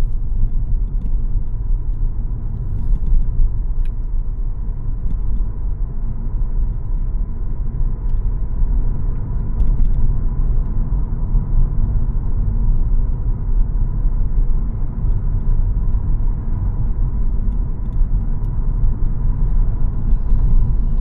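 Steady low rumble of a car driving along, heard from inside the cabin: engine and tyre noise.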